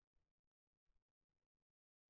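Near silence, with a few faint, brief ticks of small parts being handled in the fingers.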